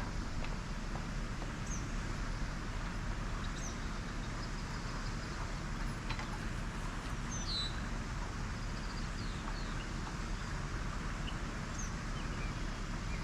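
Small birds giving short, high chirps every second or two over a steady low background rumble.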